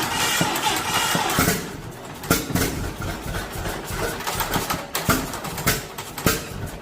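1948 John Deere Model A tractor's two-cylinder engine starting up: a loud rush of noise for the first second and a half, then slow, uneven pops about twice a second as it settles toward idle.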